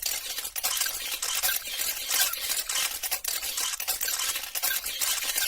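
Spoon scraping and clinking against a bowl: a dense, continuous run of small scrapes and light clicks.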